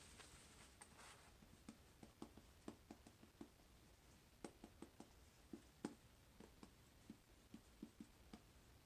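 Dry-erase marker writing on a whiteboard: faint, uneven taps and short strokes of the felt tip, two or three a second.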